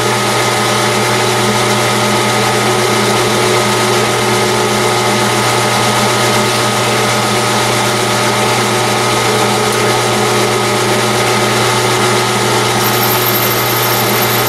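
Metal lathe running at about 190 RPM with its change gears engaged for thread cutting: a steady machine hum with several constant whining tones, as the threading tool takes a light scratch pass inside a titanium tube.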